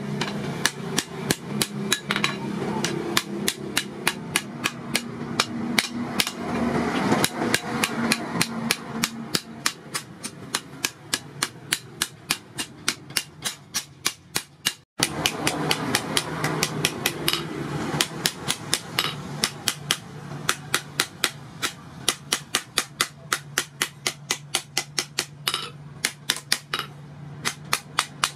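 Hand hammer striking red-hot steel from a disc plough blade on a post anvil as a digging hoe is forged: a steady run of sharp metallic blows, roughly two to three a second, with a brief gap about halfway.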